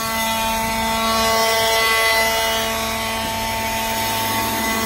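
Ryobi One+ 18-volt cordless leaf blower with a brushless motor running steadily, a whine over the rush of air as it blows leaves.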